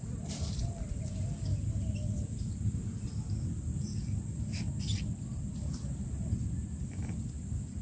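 Outdoor ambience: a steady low rumble with a steady high hiss above it, a faint wavering tone in the first two seconds, and a few faint clicks.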